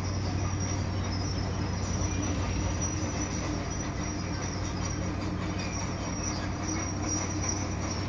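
Crawler bulldozer and single-drum road roller running together: a steady diesel drone with a low hum, track and drum rumble, and a thin high whine over the top.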